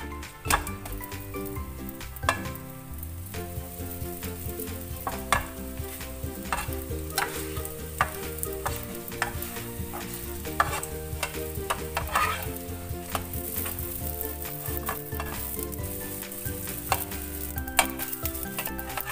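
Hotteok pancakes frying in oil in a non-stick pan with a steady sizzle. A metal spatula clicks and scrapes against the pan many times at irregular intervals as the pancakes are turned and pressed.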